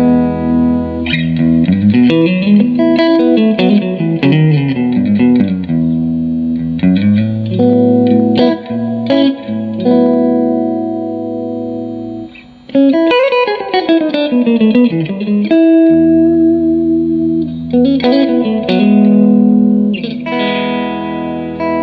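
Electric guitar played clean through a Fender Blues Junior IV tube combo amp: ringing chords alternating with quick single-note runs, and a brief pause about twelve seconds in before the playing picks up again.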